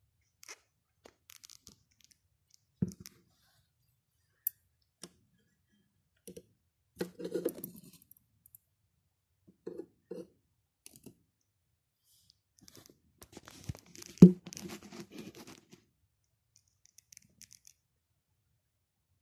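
Cork bark and terrarium fittings being handled: scattered knocks, scrapes and crunchy rustling in short bursts, with the loudest sharp knock about fourteen seconds in.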